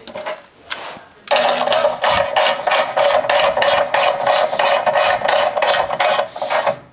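TIG welding arc on sheet steel: a steady hiss that pulses about three times a second. It starts about a second in and cuts off just before the end.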